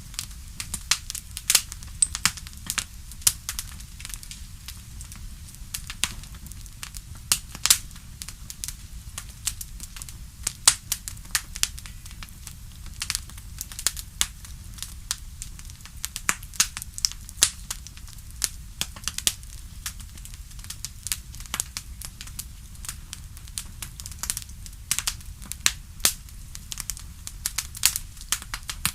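Campfire crackling: frequent irregular sharp pops and snaps over a low steady rumble.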